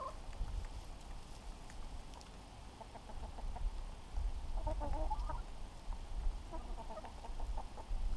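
Domestic hens clucking softly in short groups of calls, twice in the middle part, over a low rumble.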